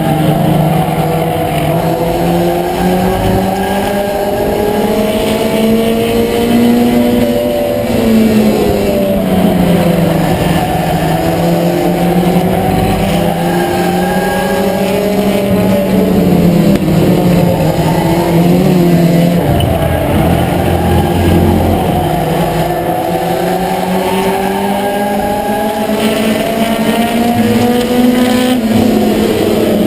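A Ford Escort's four-cylinder engine at race pace, heard from inside the cockpit. Its pitch climbs for several seconds, then drops and climbs again in a repeating cycle as the car comes off and onto the throttle around the short oval, with some tire squeal.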